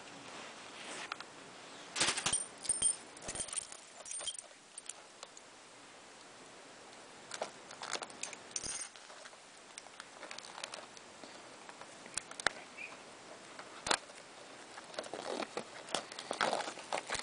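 Fingers and fingernails picking and scratching at the shrink-wrap on a plastic Blu-ray case, trying to open it. The plastic gives irregular clicks and short crinkles, with bunches of them about two seconds in, around eight seconds and near the end.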